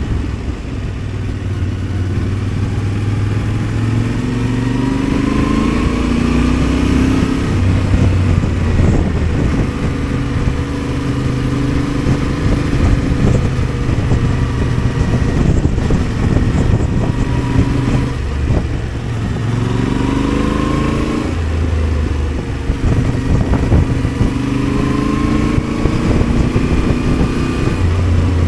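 Yamaha Ténéré 700's parallel-twin engine running under way, its pitch rising and falling several times as the rider accelerates, shifts and eases off. Wind rushes over the helmet microphone throughout.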